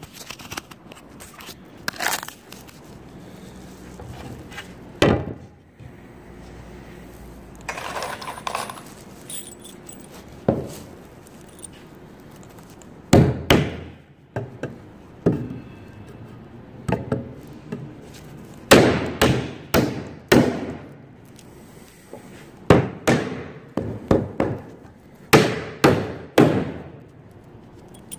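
Irregular knocks, bangs and clatter of wooden boards and objects being handled, sometimes a single bang and sometimes a quick run of several, with short gaps between.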